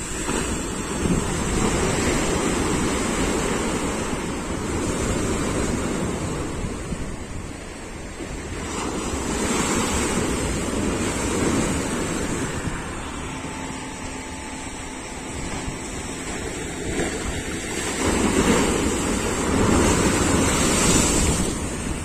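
Sea surf breaking and washing through a breakwater of concrete tetrapods: a loud, continuous rushing that swells with each incoming wave and eases between them, with the biggest surges near the start, in the middle and near the end.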